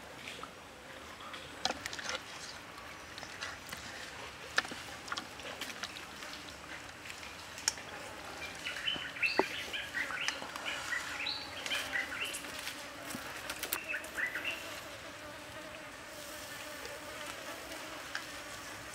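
Scattered clicks and taps as hands handle a sauce-coated octopus on a plate and lay it on a wire grill. About halfway through, a run of short, high chirps lasts several seconds.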